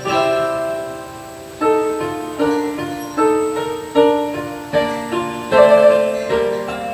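Piano accompaniment playing a slow introduction: chords and single melody notes, each struck and left to ring and fade, about one or two a second.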